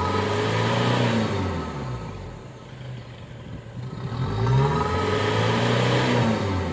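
Isuzu D-Max diesel engine revved twice with no load, each time climbing quickly, holding high for about two seconds and dropping back to idle. This is a free-rev to check the exhaust for smoke, and the engine is blowing black smoke, which goes with its weak power.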